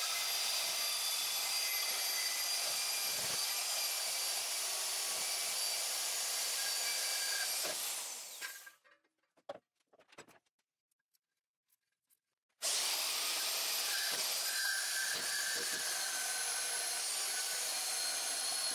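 Wen portable band saw, with its 10-amp variable-speed motor, running and cutting through an aluminium wheel as a steady, high-pitched whine mixed with the blade grinding through metal. It stops about eight and a half seconds in. A few clicks fall in a four-second pause, then the saw starts again and runs on.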